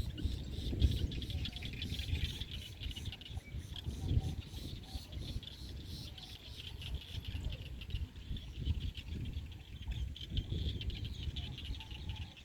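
Night insects, crickets, chirping in a fast, steady pulsing trill, over an irregular low rumble.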